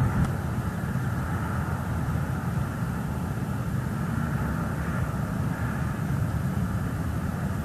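Steady low outdoor rumble with a faint hiss, even and unbroken throughout, picked up by the nest-cam microphone.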